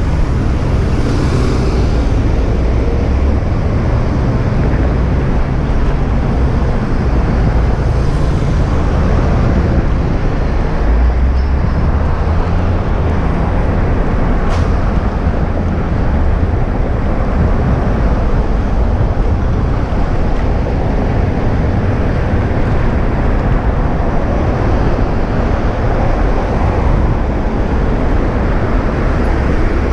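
Steady rushing wind on the microphone with road and traffic noise while riding an electric rental scooter along a street.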